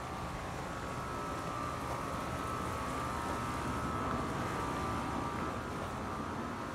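A steady motor drone, swelling slightly in the middle and easing off toward the end.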